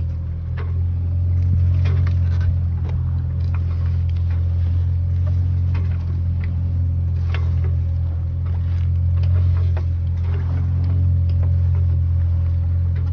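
Sailboat's inboard engine running with a steady low drone, with scattered light clicks and knocks from the deck and rigging.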